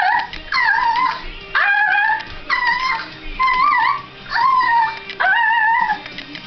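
A girl making a vocal noise: a series of about seven short, high-pitched squeals with a wavering pitch, each about half a second long.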